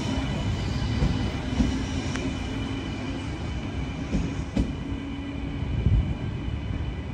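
A train moving along the track: a steady low rumble with a low hum and several irregular sharp knocks from the wheels and rails.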